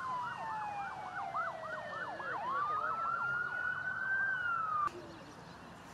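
Emergency vehicle siren: a rapid yelp of about four to five rising-and-falling sweeps a second over a slowly falling tone, turning into a longer wail, then cutting off abruptly near the end.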